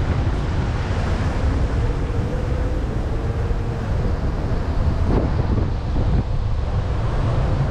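Wind buffeting the camera's microphone as a steady low rumble, over faint city street traffic.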